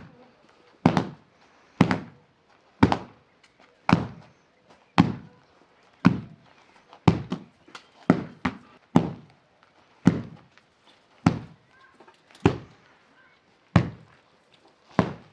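A series of heavy blows, about one a second, each a sharp thud with a short ring after it; twice a blow comes as a quick double strike.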